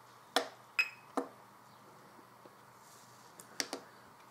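Button clicks on an Eachine TX16S radio control transmitter as its menus are worked: three sharp clicks about half a second apart, the second with a short high beep, then two more quick clicks near the end.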